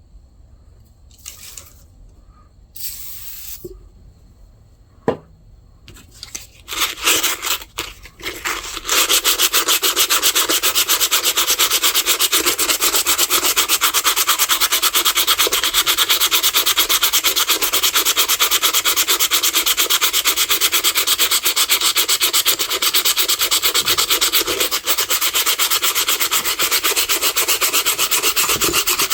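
Sandpaper worked by hand over the rusty steel blades of a pair of vintage Boker hand shears, taking off surface rust. After a few quiet seconds with some brief rustles, rapid, steady back-and-forth sanding strokes start about nine seconds in and keep an even pace.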